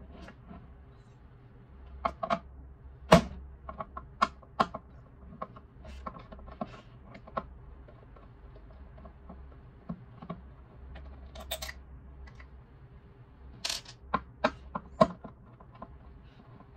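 Screwdriver and screws clicking and tapping against the plastic housing of a Xiaomi Mijia humidifier during disassembly, in scattered sharp clicks and small knocks. The loudest click comes about three seconds in, with another quick cluster near the end.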